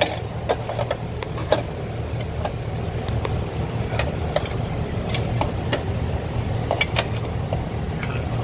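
Hand tools on the metal shifter plate and bolts: scattered light clicks and taps, over a steady low mechanical hum.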